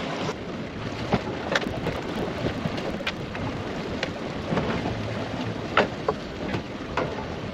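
Steady wind and sea noise aboard a boat running in choppy water, broken by scattered sharp clicks and splashes.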